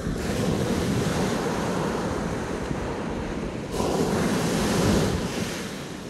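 Small waves breaking and washing up a sandy beach, one surge of surf at the start and a second, louder one about four seconds in that then fades. Wind rumbles on the microphone underneath.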